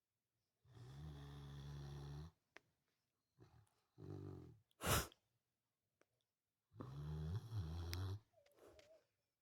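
A sleeping dog snoring: two long snores, about a second in and about seven seconds in, with a shorter snore between and a fainter one near the end. About five seconds in there is a single short, sharp burst of noise, the loudest sound.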